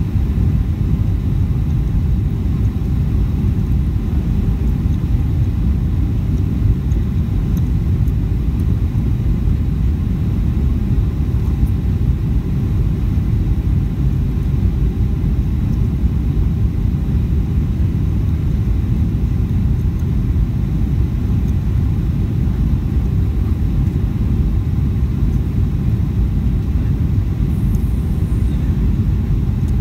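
Steady low rumble of a jet airliner's cabin noise on approach, from the turbofan engines and airflow, heard from inside the cabin beside the wing.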